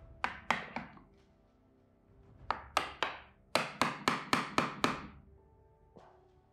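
Sharp taps of a steel chisel being driven into Scots pine deadwood to split the fibres: three quick taps, three more, then a faster run of about six at roughly four a second.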